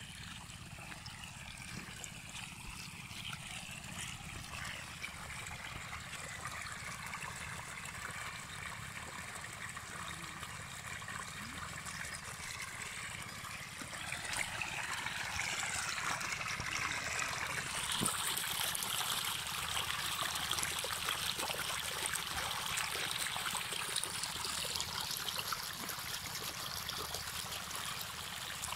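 Irrigation water gushing from a water pump's lay-flat discharge hose and running through flooded furrows, a steady rush that grows louder about halfway through.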